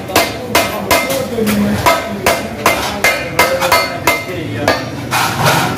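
A wooden mallet strikes a stainless steel popsicle-mold sheet over a steel rail, bending its edge. It makes a steady run of sharp knocks with a short metallic ring, about three a second.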